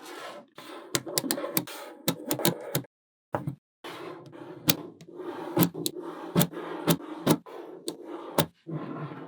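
Small magnetic balls clicking and snapping together as they are placed, with sharp irregular clicks over a rattling, rustling handling noise.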